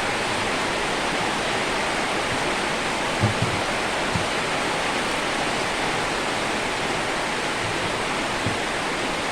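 Steady even hiss, with a few soft low knocks about three, four and eight seconds in.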